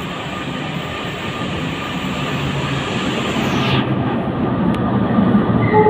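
Train passing through the station without stopping, a steady rumble of wheels on rail growing gradually louder.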